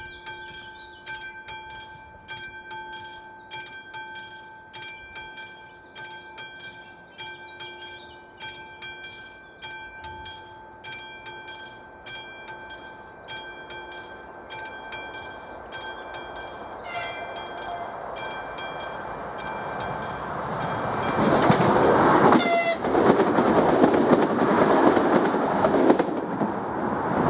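A classic electric level-crossing warning bell rings with rapid, evenly repeated strikes. Partway through, a train gives a short horn blast. In the last few seconds the train passes over the crossing with a loud rushing noise and a brief wavering high squeal.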